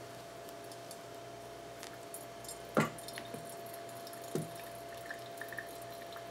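Pour-over coffee dripping through a paper filter in a glass dripper, with small drips getting more frequent in the last second or so. Two knocks stand out: a loud one just before the three-second mark and a softer one about a second and a half later. A steady faint hum runs underneath.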